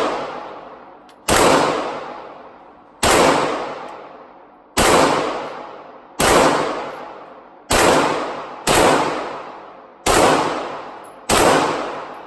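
Firearm fired in a slow string of single shots, about eight of them roughly one to one and a half seconds apart, each sharp report ringing out in a long echoing decay.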